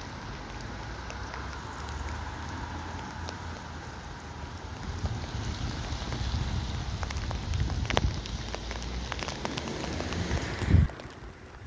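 Rain falling, with many small drop clicks, and wind rumbling on the microphone; a loud thump near the end, after which the rain hiss goes quieter.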